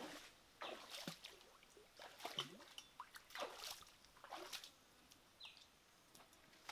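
Faint splashing of bare feet wading through a shallow rocky stream, a step every second or so. A short falling chirp sounds about five seconds in.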